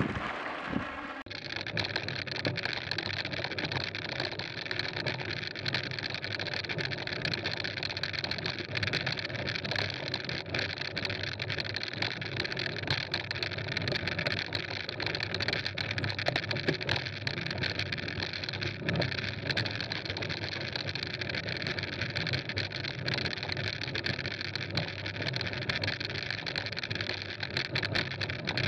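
Mountain bike rolling fast over a gravel road, heard from a camera mounted on the bike: a steady rush of tyre noise and wind with many small clicks and rattles from gravel and the bike. It starts abruptly about a second in.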